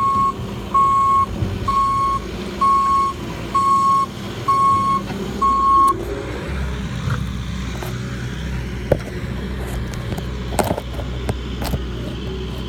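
Bobcat loader's engine running steadily while its reverse alarm beeps about once a second, a sign the machine is backing up. The beeping stops about halfway through, the engine keeps running, and a few sharp knocks follow near the end.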